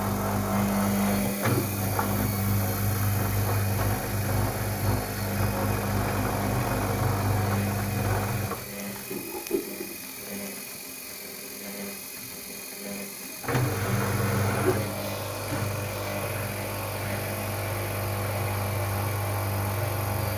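LG WD-80155NUP front-loading washing machine turning its drum during the wash: a steady motor hum that stops about eight seconds in, pauses for around five seconds, then starts again.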